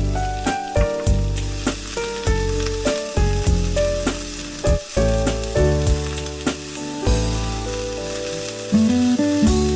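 Napa cabbage and bacon sizzling in a frying pan while being stirred and tossed with cooking chopsticks, with small clicks against the pan. Melodic background music plays along.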